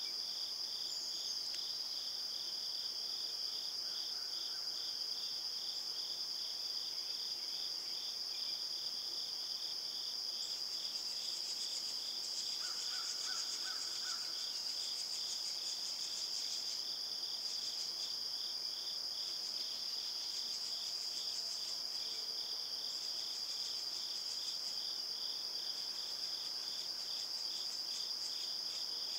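Insects chorusing in the woods: a steady high-pitched trill with a lower, evenly pulsing chirp beneath it, unchanging throughout.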